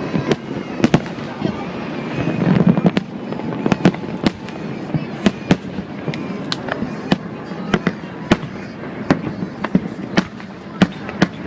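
Fireworks going off in quick, irregular succession: many sharp bangs, several a second at times, over a background of people's voices.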